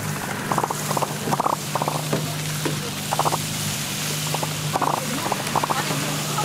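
Blocks of margarine pressed and rubbed across a hot takoyaki pan, the melting fat sizzling in the wells with clusters of quick crackles, over a steady low hum.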